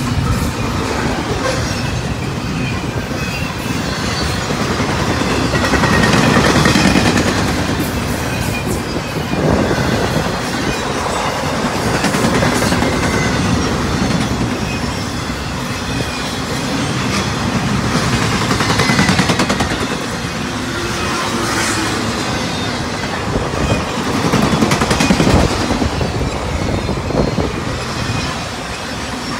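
Fast CSX intermodal freight train's double-stack container cars and trailer flatcars rolling past close by: a loud, continuous rush of steel wheels on rail that swells and eases every few seconds as cars go by.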